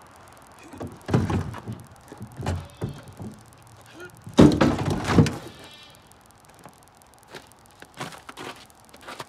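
Knocks and thuds of a John Deere Gator's steel cargo bed being handled, the heaviest clatter about four and a half seconds in, then footsteps in snow near the end.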